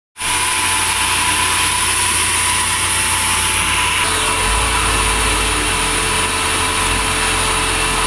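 Vertical band sawmill running without a cut, a loud, steady machine drone with a thin whine. The whine drops lower about halfway through.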